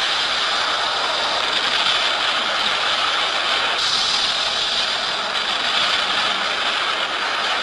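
A dense, unbroken mechanical clattering noise that holds steady throughout.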